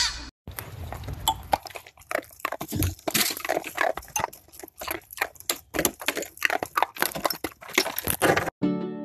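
A dog biting and chewing icicles: a quick, irregular run of sharp crunches and cracks.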